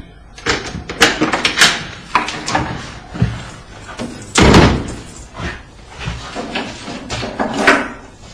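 A door being opened and shut, with a string of sharp knocks and clatters and one heavier slam about halfway through.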